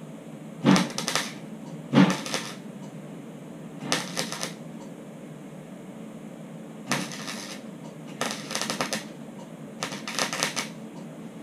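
Welder tacking a sheet-metal patch panel: six short crackling bursts, a second or two apart, over a steady low hum.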